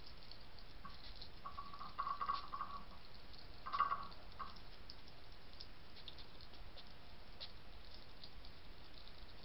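A European hedgehog eating dry kitten kibble from a dish: small crunching and smacking ticks, with a few louder brief chewing sounds about two and four seconds in, over a steady hiss.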